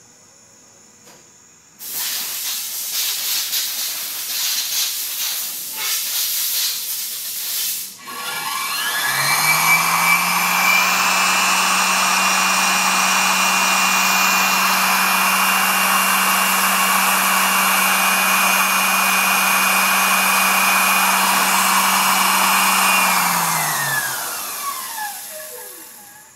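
Sherline 5400 mill's DC spindle motor spinning up with a rising whine about eight seconds in, running at a steady speed with a hum and a whirr, then winding down near the end. Before it, a loud hiss starts about two seconds in and lasts some six seconds.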